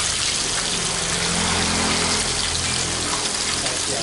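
A whole giant gourami deep-frying in a pan of hot oil: steady, dense sizzling and bubbling of the oil around the fish.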